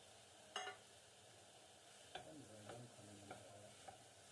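A spatula stirring chicken tikka pieces and masala in a nonstick frying pan: soft knocks and scrapes against the pan about every half second from about two seconds in. A single sharper click comes about half a second in.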